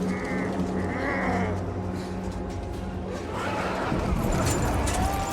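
Lycan (werewolf) creature growling and snarling in wavering, gliding calls, swelling into a louder, rough roar about four seconds in.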